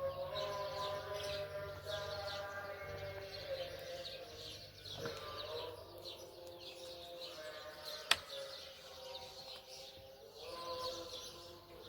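Small birds chirping repeatedly over soft background music made of held tones, with one sharp click about eight seconds in.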